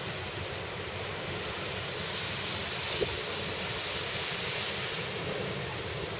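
Ocean surf breaking on the reef and the beach, a steady wash of noise, with wind blowing across the microphone. A brief light tick about three seconds in.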